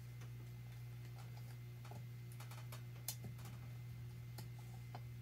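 Scattered faint metal clicks and ticks as piston rings on a Sea-Doo Rotax 951 two-stroke engine are squeezed and worked into the bottom of the cylinder block, a sharper click about three seconds in, over a steady low hum.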